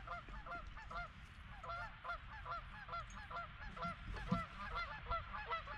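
A flock of geese honking: many short calls overlapping and repeating throughout, over a low rumble.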